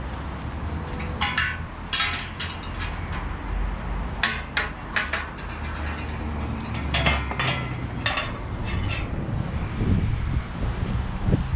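Loose scrap metal clattering and clinking in bursts over a steady low vehicle engine rumble.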